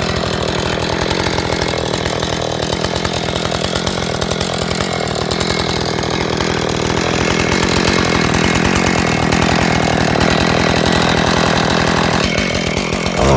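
Husqvarna Rancher 450 50cc two-stroke chainsaw running hard at high revs, a loud, steady, continuous drone.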